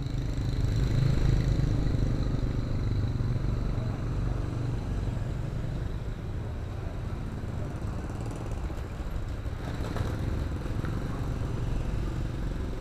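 Light road traffic: small motorcycle engines running at low speed as they pass close by, over a steady low rumble.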